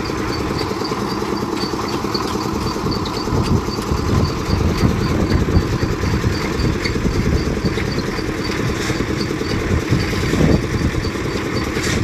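Portable concrete mixer's engine running steadily, with a faint high tick repeating about three times a second.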